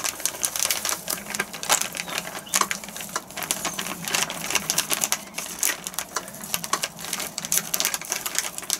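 Packet of pancake and waffle mix crinkling as it is squeezed and shaken to empty the powder into a glass mixing bowl: a rapid, irregular run of crackles.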